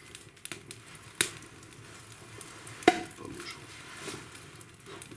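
Wood fire burning in a fireplace, hissing and crackling faintly, with two sharp cracks about one and three seconds in.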